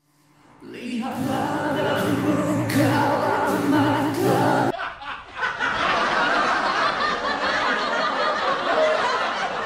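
Singing with a strong, even vibrato, cut off abruptly about five seconds in and followed by a dense, noisy mix of sounds.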